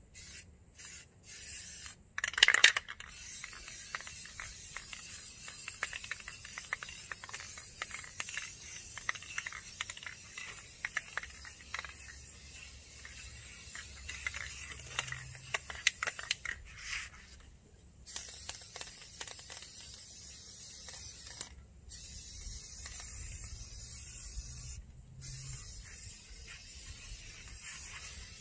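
Aerosol spray-paint can hissing in long bursts with brief breaks as paint is sprayed over a honeycomb truck grille. There is a short loud clatter about two and a half seconds in.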